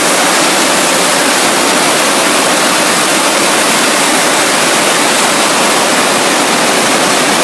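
Loud, steady rushing roar of glass-factory machinery and air, an even hiss with no rhythm or distinct tones, ending in a sharp click.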